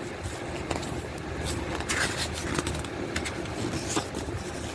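Light clicks, taps and rustles from handling a plastic media case and its paper insert, over a steady low background rumble.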